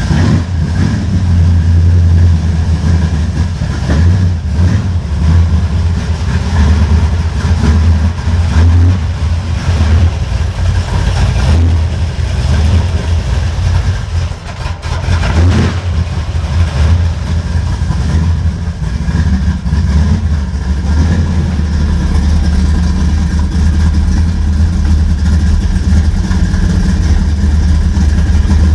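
The 1973 Chevrolet Caprice's engine idling loudly with a steady, pulsing low rumble, dipping briefly about halfway through.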